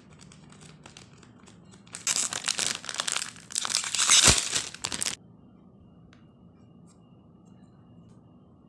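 Plastic wrapper of a packaged 7Days croissant being crinkled and torn open, with faint rustling at first, loud crinkling and tearing from about two seconds in, stopping abruptly a little after five seconds.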